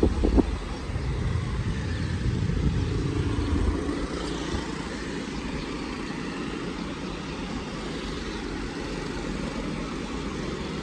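City street traffic: a steady stream of motorbikes, auto-rickshaws and cars passing, with a heavier low rumble during the first four seconds or so.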